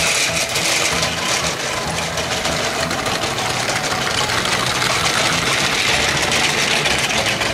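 Battery-powered plastic toy trains running on plastic track: a steady motor whir with the rattle of wheels and carriages over the track joints.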